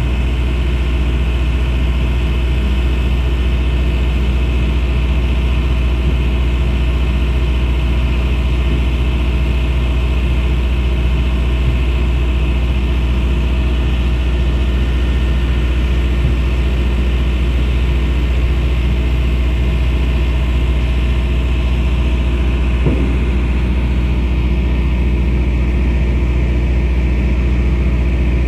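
Heavy diesel engine running steadily with a deep, unchanging drone, with a faint knock near the end.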